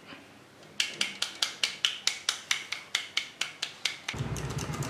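Plastic toy gun clicking in a rapid, even series of about five clicks a second for some three seconds. Near the end a low, steady buzz takes over.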